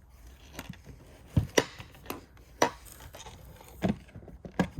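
A boxed item being handled, giving about five sharp, irregular knocks and clicks; it is stuck tight in its box.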